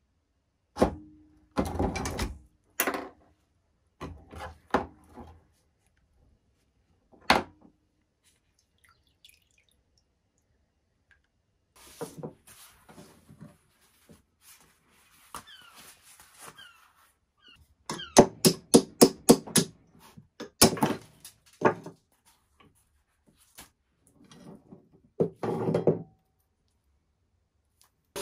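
Metal parts and hand tools knocking and clinking as they are handled on a workbench: scattered single knocks, with a quick run of sharp clicks about two-thirds of the way through.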